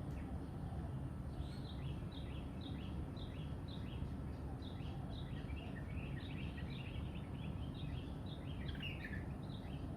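Songbird singing: a run of short, quick down-slurred notes, about two a second, starting about a second and a half in and growing busier near the end, over a steady low background rumble.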